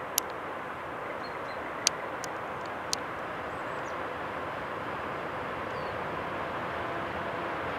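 VL80K electric locomotive with a freight train approaching in the distance: a steady hiss and rumble that grows slowly louder. A few sharp clicks sound in the first three seconds.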